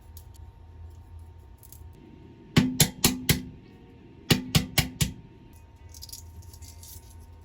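Kitchen knife chopping on a cutting board: two quick runs of four sharp chops, about two and a half seconds in and again about four seconds in, each with a brief ring from the board. Fainter light clicking and rustling near the end.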